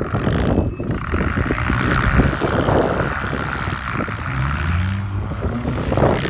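Demolition derby car engines running, one revving up with a rising pitch about four seconds in, over wind rumbling on the microphone.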